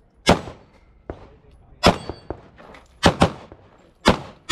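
Handgun shots: single shots about a quarter second and two seconds in, a fast pair about three seconds in, and another near the end.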